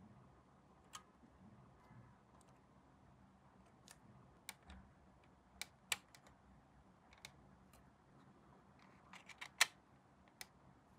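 Sparse light clicks and taps from small plastic model-kit parts and tools being handled, ending in a quick cluster of clicks, the loudest, near the end.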